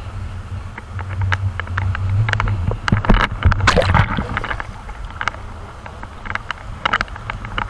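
Surf and splashing water close to an action camera: a low rumble of waves and wind, with many knocks and clicks as water hits the camera, and a burst of splashing about three to four seconds in.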